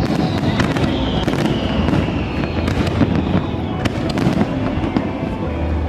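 Fireworks display going off: a dense run of sharp crackling bangs over a continuous low rumble of booms.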